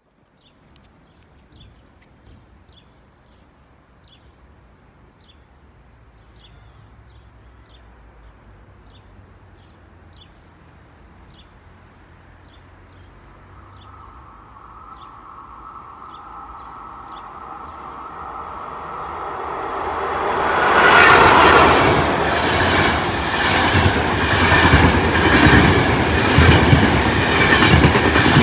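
A Trenitalia Intercity train of electric locomotive and coaches approaching and passing at speed. First a faint rising hum in the rails. Then, from about two-thirds in, the loud rush of the train going by with a rhythmic clatter of wheels over the rail joints.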